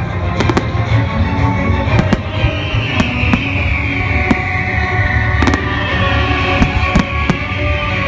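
Aerial firework shells bursting with sharp bangs, one or two a second, over loud music with a heavy bass.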